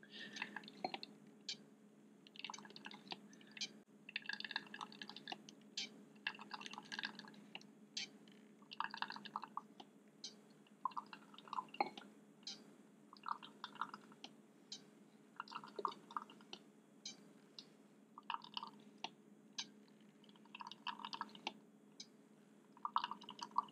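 Wacaco Nanopresso's hand piston pump being worked at a steady pace, each stroke a faint clicking squelch, as it forces hot water through the coffee to pull an espresso shot.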